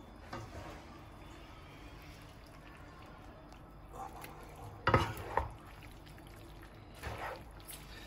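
Wet, sticky sounds of ribbon pasta in a creamy pesto sauce being lifted and tossed in a frying pan with a wooden spoon and spatula, in a few short bouts. About five seconds in comes a short, louder knock.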